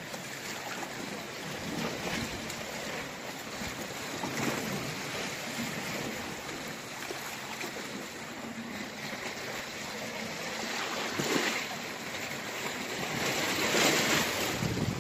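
Sea waves washing against a rocky shore, swelling and easing, loudest near the end.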